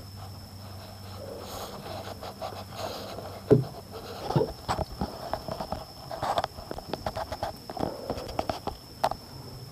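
Irregular knocks, taps and rustles of gear being handled in a small wooden boat, with the loudest knock about three and a half seconds in.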